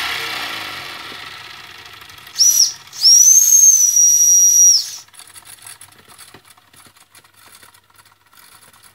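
Steam whistle on the boiler of a Jensen #65 toy live steam engine blown twice: a short toot, then a steady high whistle of about two seconds. Before the whistle, a hiss fades away over the first two seconds.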